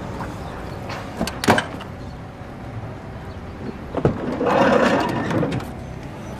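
Van doors being handled: a few sharp clunks about a second and a half in, then a knock and a longer scraping rush of about a second, around four and a half seconds in, as a sliding door runs along its track.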